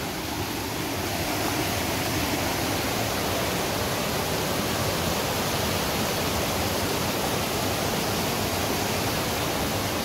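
Steady rush of fast-flowing river water, an even noise that holds without a break.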